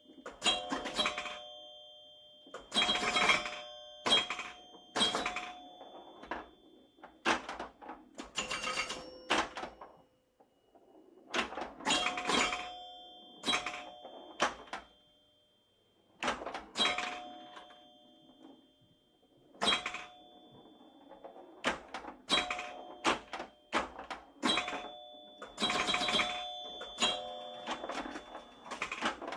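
A series of sharp clicks and clacks at an irregular pace, many followed by a short bell-like ding.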